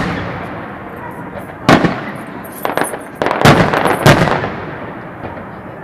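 Aerial firework shells bursting: a bang right at the start, another a little under two seconds in, then a quick cluster of bangs about three to four seconds in, each trailing off in a rolling echo.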